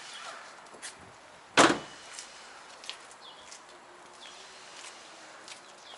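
Ford Transit cab door slammed shut once, about a second and a half in, followed by light footsteps on paving.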